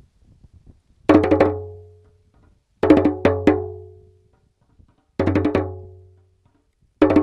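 Two hand drums trading short rhythmic phrases in call and answer: four quick groups of three to five sharp strokes, each ringing out before the next drum answers. This is signal drumming, one drum calling and the other replying.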